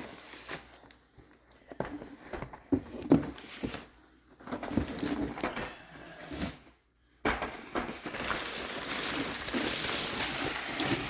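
Packaging being handled during an unboxing: scattered knocks and clicks of items and box being moved, then, about seven seconds in, a steady crinkling rustle of plastic or paper wrapping.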